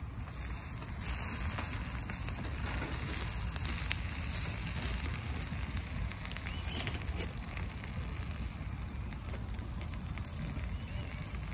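Wood fire crackling inside a titanium wood-burning camp stove: a steady hiss dotted with many small scattered pops.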